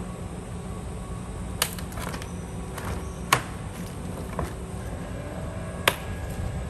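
Tools and parts handled in a car's engine bay: short sharp clicks and knocks, the three loudest about a second and a half, three and a half and six seconds in, over a steady low hum.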